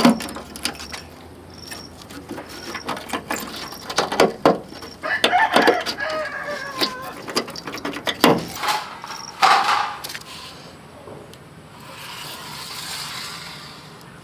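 Scattered metallic clicks and knocks, with a drawn-out pitched call lasting about two seconds, starting about five seconds in.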